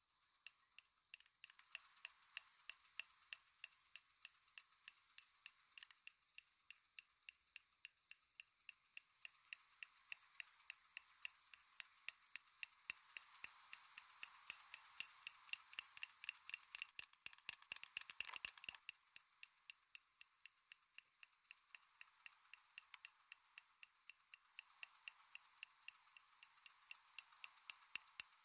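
Light, even tapping, about three to four taps a second, steady throughout and a little louder around the middle.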